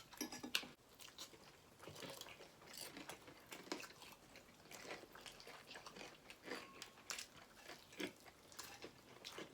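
Faint chewing and biting on fried chicken, with scattered small crunches and mouth clicks.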